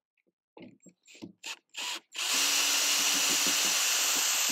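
Cordless drill on a long extension bar, backing screws out of the bottom of a wooden crate. A few short bursts, then from about two seconds in the drill runs steadily at speed.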